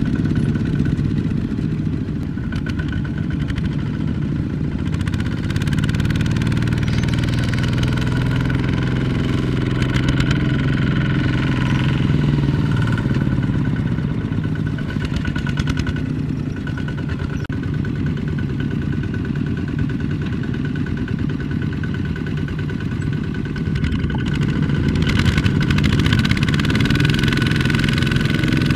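Two-wheel power tillers with Kubota ZT155 single-cylinder diesel engines running steadily under load as they pull loaded trailers through sticky rice-field mud. The engine pitch shifts a little in the middle, and there is some clatter.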